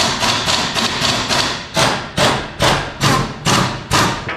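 Pneumatic impact wrench hammering in short repeated bursts, about two a second, on an old seized front suspension bolt that will not come loose.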